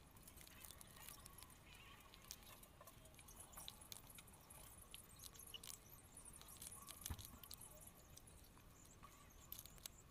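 Near silence, with faint, scattered small clicks and ticks of hands handling a paint marker and paper; one slightly sharper click about seven seconds in.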